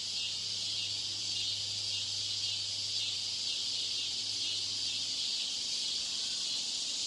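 Steady high-pitched hiss from a deliberately degraded test-room broadcast recording, with a faint low hum underneath that stops about five seconds in.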